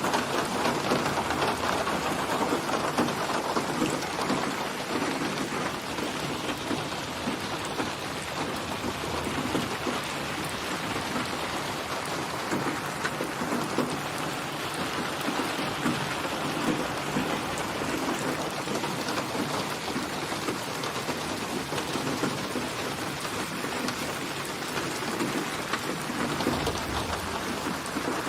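Steady rain falling, an even hiss of many drops, with a faint low rumble near the end.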